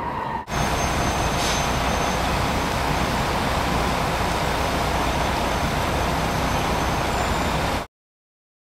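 Steady city traffic noise, a constant low rumble with hiss. It starts about half a second in and cuts off abruptly near the end.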